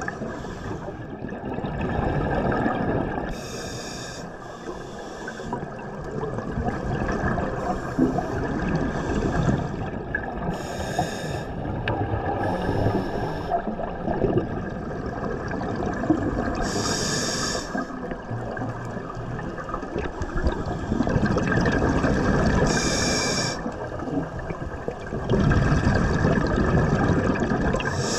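Scuba diver breathing through a regulator underwater: short hissing breaths every few seconds over a continuous bubbling and gurgling of exhaled air in the water.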